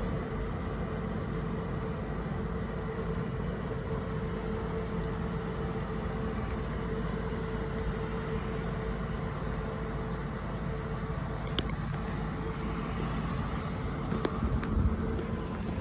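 Vehicle ferry's engine running steadily as the ferry crosses the river, a low drone with a faint steady whine. A few bumps near the end.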